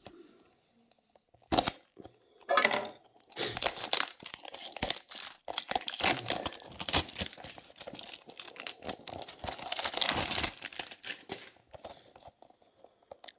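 Packaging of a 1:64 diecast model being opened by hand: a sharp click about a second and a half in, then several seconds of dense, irregular crinkling and tearing.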